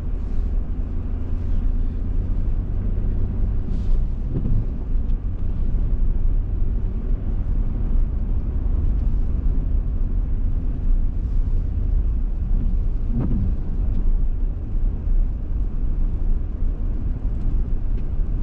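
Steady low rumble inside the cab of a 2022 Toyota Tundra driving on a slushy, sanded dirt road: tyre, road and drivetrain noise.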